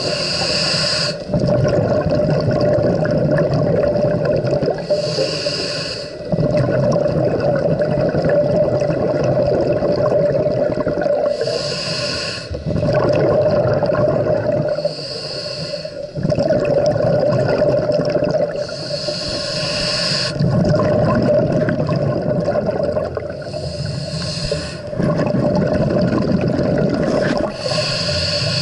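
A scuba diver breathing through a regulator: a hiss with each inhale, seven in all, every four to six seconds, with a low bubbling rumble of exhaled air between them.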